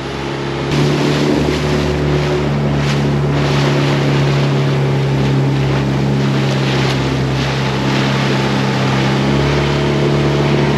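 Outboard motor pushing an inflatable dinghy at speed, a loud steady drone. Wind buffets the microphone and water rushes past the hull.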